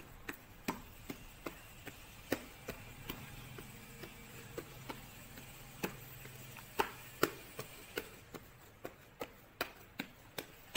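Hands patting and pressing bread dough flat on a plastic tray: a string of short, soft pats, about two or three a second, with a pause around the middle.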